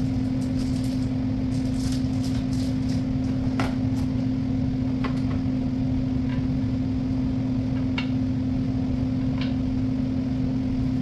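A steady machine hum at one pitch over a low rumble, with a few light clicks and taps of cabinet parts and hardware being handled.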